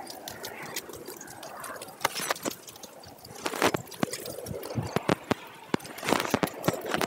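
Mobile chicken coop on wheels being pulled across gravelly dirt: irregular crunching and clicking from the wheels and the wooden frame, with a run of louder knocks about halfway through and again near the end.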